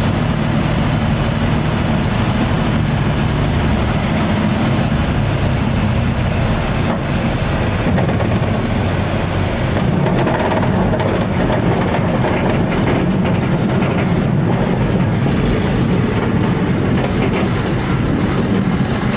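Single-engine piston light aircraft's engine and propeller running steadily and loudly, a constant low engine note under heavy rushing noise.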